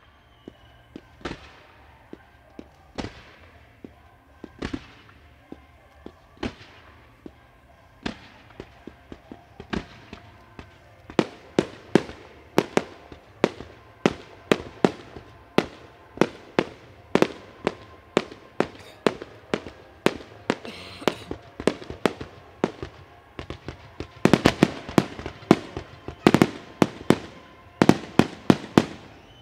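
Fireworks display: aerial shells going off in a string of sharp bangs. They come one every couple of seconds at first, then rapidly from about ten seconds in, with dense volleys near the end.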